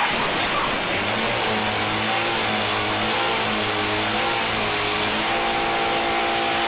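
Car engine running at high revs, holding a steady, slightly wavering pitch over a constant hiss.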